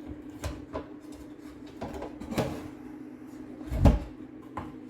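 Bamboo parts knocking and clunking together as a bamboo leg is handled and lined up against the main bamboo section: about six short wooden knocks, the loudest and deepest about four seconds in.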